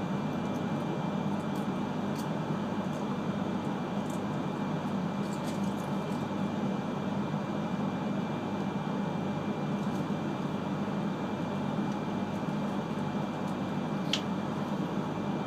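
Cabin noise inside an E3 series Shinkansen car rolling into a station: a steady low rumble and hiss with a faint steady high whine, and a brief high squeak near the end.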